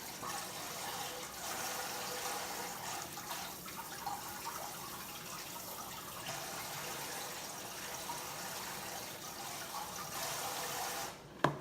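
Water running steadily from a tap, shut off with a click near the end.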